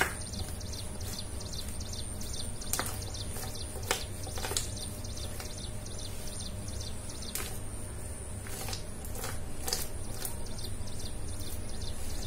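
Fingers spreading thick, wet gram-flour paste over colocasia (taro) leaves, making scattered sticky clicks and smacks over a steady low hum.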